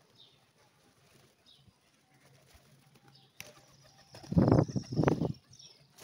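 Pigeons flapping their wings hard close to the microphone, in two or three loud, noisy flurries starting about four seconds in, after a quiet stretch.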